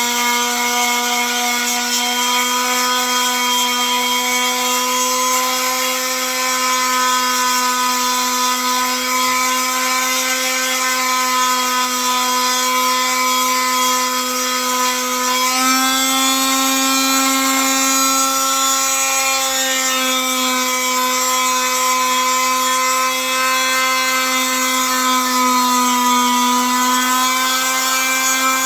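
An electric power tool motor running at a steady high speed, with its pitch shifting slightly now and then as it is worked.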